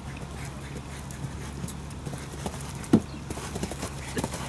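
A horse's hooves cantering on arena footing, with one sharp, loud thump about three seconds in.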